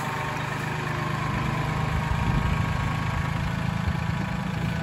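Mahindra compact tractor's diesel engine running steadily at low revs as the tractor drives slowly across grass.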